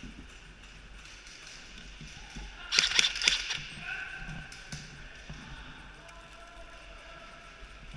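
An airsoft gun firing a quick burst of about five sharp shots about three seconds in, with faint distant shouting after it.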